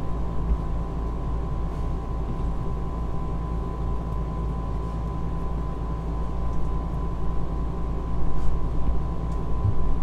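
Steady low hum and hiss of recording background noise, with a faint steady whine and no other sound event.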